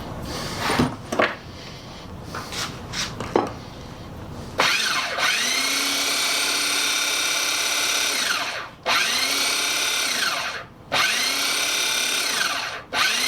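A few clicks and knocks of handling, then the Black & Decker 7980 drill bit sharpener's motor is switched on about four and a half seconds in, its grinding wheel spinning up with a rising whine. It is cut off and restarted three times, running steadily in between. The spindle bearing is freshly greased, and the wheel runs without hop or wobble.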